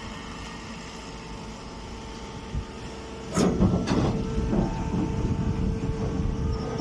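Round straw baler running with a steady mechanical hum, then breaking into louder clattering and rattling about halfway through.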